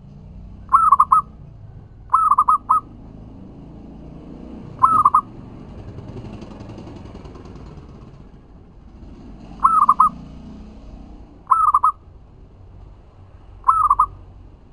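Zebra dove (perkutut) cooing in six short phrases of quick, rippling notes, spaced a couple of seconds apart, over a faint low background rumble.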